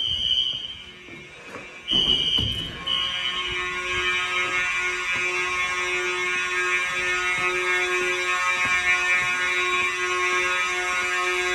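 Fire alarm horns sounding in a continuous pattern during an alarm test. Shortly after the start they drop much quieter for about a second, then come back loud at about two seconds in. From there several horns blend into one unbroken, dense tone.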